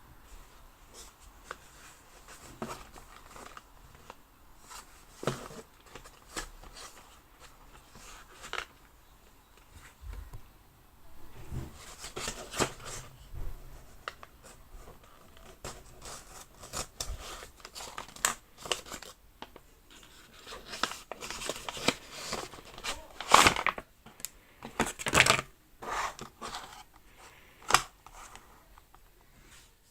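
Packaging of a Popin' Cookin' DIY candy kit being handled and opened: irregular crinkling, tearing and snipping of plastic and paper, with scattered sharp clicks. The handling grows busier and louder in the last third.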